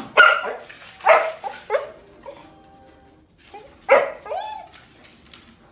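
A small dog barking in short sharp barks, four times, with a brief rising-and-falling call right after the last bark.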